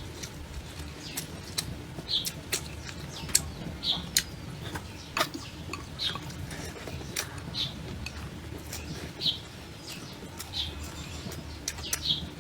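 A bird chirping over and over, one short high note about every second, with scattered sharp clicks and a low background hum.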